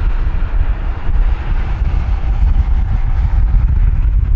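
Strong wind buffeting the microphone in a deep, gusty rumble, over the faint, steady noise of a distant jet airliner's engines on approach.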